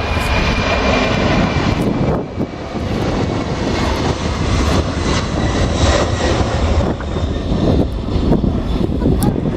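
Boeing 747-400 jet engines at takeoff power, a loud, steady rumble with a crackling texture and a brief dip about two seconds in.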